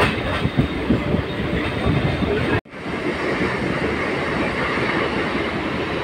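Moving passenger train heard from an open carriage window: wheels running over the rails with irregular clacks. The sound cuts out abruptly for a moment about two and a half seconds in, then the steadier running noise resumes.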